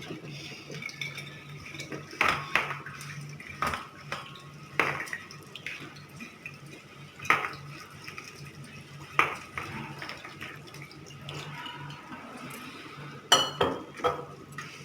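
Puffed rice being washed by hand in water in a metal vessel, with the vessel clinking and knocking irregularly every second or two; the loudest clink comes near the end.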